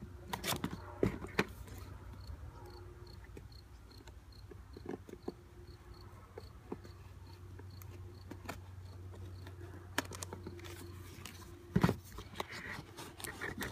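Scissors cutting and prying at a sealed cardboard box, with scattered clicks, scrapes and taps of the cardboard being handled; the loudest knocks come near the end. Under it, an insect chirps faintly and evenly, about twice a second.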